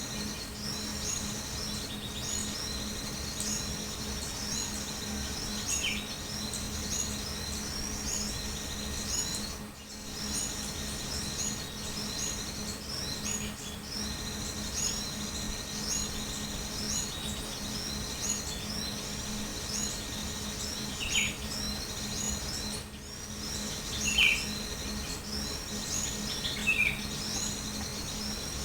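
Small birds calling: a high chirping call repeats steadily about once a second, with a few short, lower, falling chirps now and then over a faint steady low hum.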